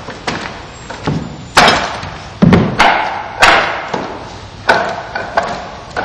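Strikes against a Shaolin wooden kung fu dummy: about a dozen irregularly spaced wooden knocks and thuds, each with a short echo, the loudest near the middle of the run.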